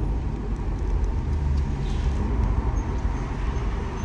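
Steady low rumble of a car on the move, heard from inside the cabin: engine and road noise with no voices.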